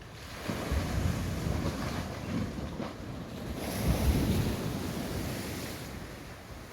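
Ocean waves washing onto a beach in two surges, the second and louder one peaking about four seconds in before fading away, with wind rumbling on the microphone.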